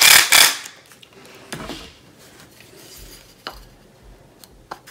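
Cordless driver running briefly as it drives a screw into a pre-drilled block of oak, stopping about half a second in. A few light clicks and knocks of the wood and screw being handled follow.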